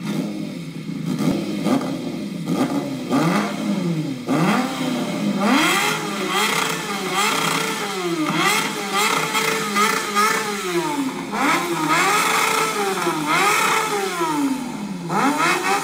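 Kawasaki ZZR 600's inline-four engine running through a GPR aftermarket exhaust: it idles at first, then from about three seconds in it is revved in short throttle blips about once a second, each rising and falling in pitch.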